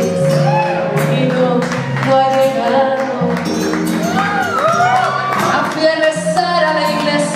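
Instrumental backing music with a steady bass line and percussion, played over PA speakers, between the singer's sung lines.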